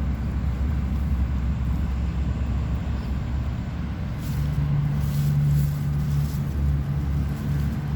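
Steady low rumble of motor traffic, with a steady engine hum joining about four seconds in.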